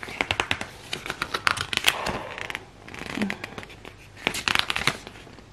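Paper pages of a printed instruction booklet rustling and crinkling as they are handled and turned, with many small sharp crackles.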